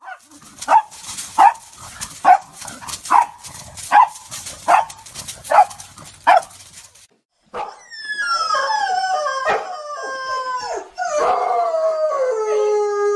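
A dog barks about eight times at a steady pace. After a short pause, a dog howls in long, falling howls.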